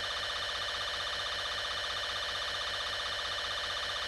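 Steady electronic warning tone droning without a break, several pitches sounding together with a slight fast wobble.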